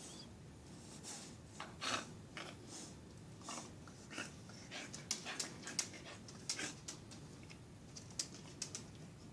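Beagle licking out the inside of a microwave and panting: a run of short, irregular licks and breaths.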